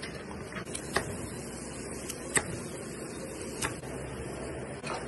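Kitchen work sounds: a steady background hum with four sharp knocks and clicks about a second apart, the loudest about halfway through, from a knife cutting a gurnard on a plastic cutting board and from utensils.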